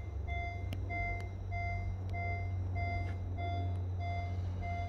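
Car's interior warning chime beeping steadily, about three beeps every two seconds, with the driver's door open and the electrics on, over a low steady hum.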